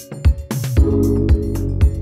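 Background music with a steady beat: a low kick about twice a second, with held chords and bass coming in about half a second in.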